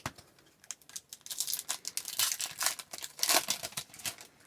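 A hockey card pack wrapper crinkling and tearing open, with quick rustles that begin about a second in.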